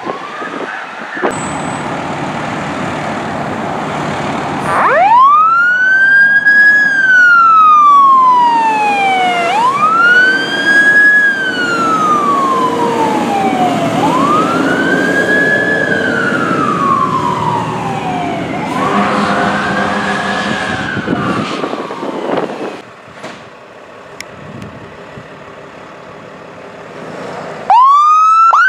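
Aerial ladder fire truck passing, its diesel engine running before its siren sounds a slow wail: a quick rise and a long fall in pitch, about four times over. After a quieter stretch of engine noise, a brush truck's siren starts near the end in a fast yelp.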